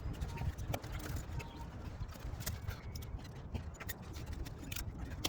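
Irregular light knocks and clicks over a steady low rumble.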